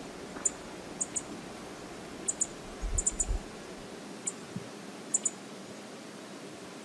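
Steady rush of river water, with about a dozen short, sharp high-pitched ticks at irregular moments, some in quick pairs, and a brief low thump about three seconds in.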